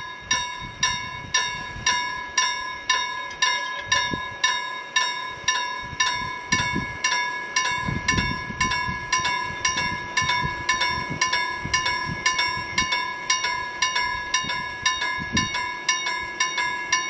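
Level crossing warning bell ringing in quick, even strokes, about two and a half a second: the crossing is active and a train is approaching.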